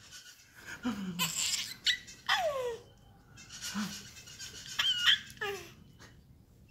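A baby girl laughing in several short, high-pitched squealing bursts, each falling in pitch, with pauses between them.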